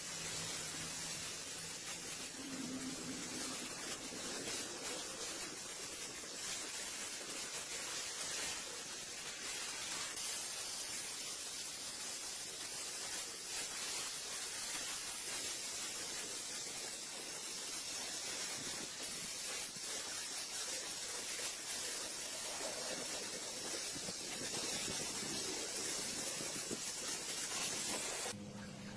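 Compressed-air tool hissing steadily, a continuous spraying hiss that cuts off suddenly near the end.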